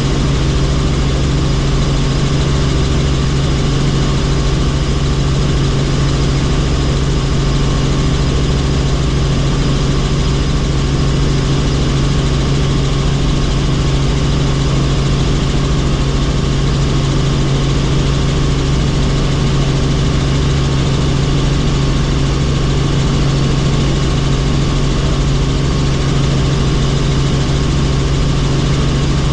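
Helicopter running steadily: a constant loud drone of engine and rotors with a strong low hum, unchanging throughout.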